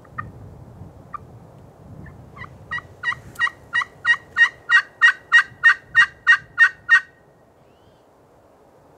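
Hen wild turkey yelping: a few scattered yelps, then a run of about fifteen evenly spaced yelps, about three a second, building in loudness before stopping abruptly.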